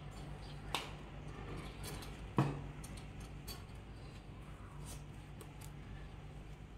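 Rope rustling and being pulled tight around two wooden sticks while a lashing is tied, with scattered small clicks of handling. Two sharp knocks of the sticks stand out, a light one just under a second in and a louder one about two and a half seconds in.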